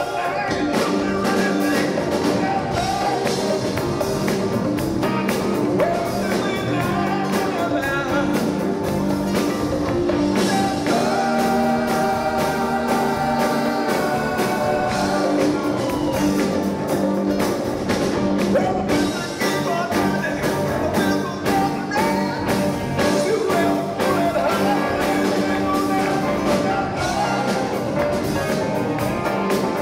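Live rock band playing, with electric guitars, bass guitar and drums over a steady beat.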